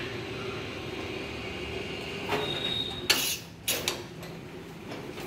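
A ductile iron pipe being set down on a stack of iron pipes. About two seconds in there is a short scrape with a brief ring, then a loud metallic clank and two lighter knocks.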